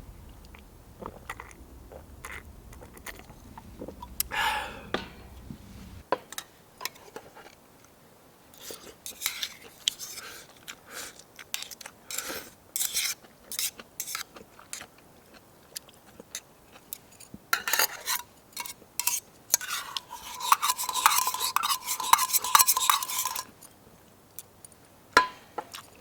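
Utensils clinking and scraping against cookware and dishes, in short irregular strokes, with a longer run of steady scraping near the end.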